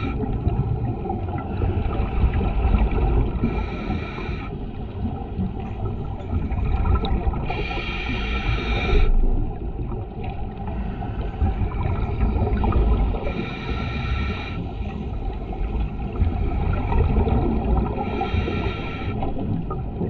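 Underwater sound of a scuba diver breathing through a regulator: a roughly one-second hissing inhale about every five seconds, four times, over a steady low rumble of water and exhaled bubbles.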